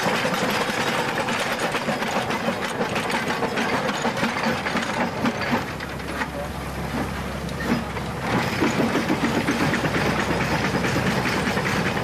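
Steam locomotive working along a rough, little-used branch line, its exhaust beats and running gear making a dense, rapid rattling rhythm.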